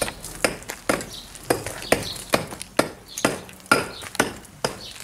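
Hammer blows knocking old plaster and render off a brick wall, a steady run of sharp, ringing knocks about two a second.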